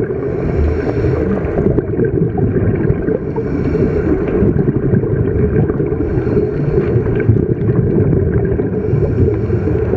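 Scuba diver breathing through a regulator underwater, a hiss of inhalation about every three seconds, over a steady low rumble of bubbles and water.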